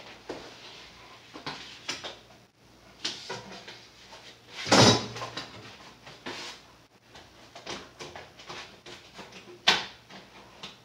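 Handling noise from a hand masker loaded with masking paper and tape: the paper and tape rustling as they are pulled out, one louder rasping pull or tear about halfway through, and scattered taps and knocks, with a sharp knock near the end.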